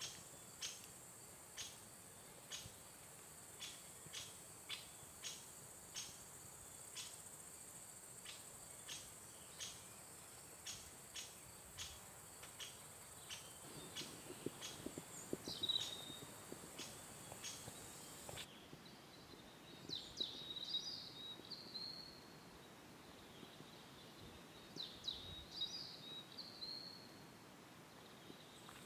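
Faint outdoor nature sound: a steady high insect hiss with a short chirp repeating about one and a half times a second. About two-thirds through, the hiss stops abruptly, and songbirds sing two short trilled phrases a few seconds apart.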